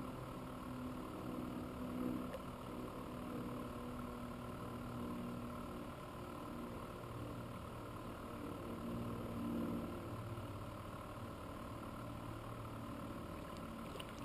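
A steady low engine hum with a few slight swells in loudness, like a motor running at idle.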